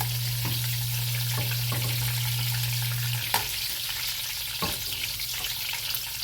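Chicken pieces sizzling in hot oil at frying temperature, a steady hiss with a few sharp clicks from a utensil. A low steady hum cuts off about three seconds in.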